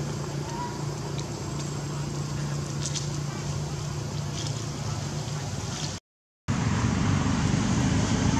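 Steady low motor hum with a few faint clicks. It drops out for half a second about six seconds in, then returns louder and rumblier.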